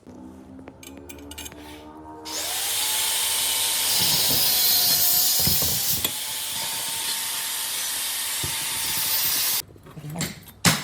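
Power tool cutting into metal: a loud hiss with a steady motor whine that dips slightly under load. It starts about two seconds in and stops suddenly near the end.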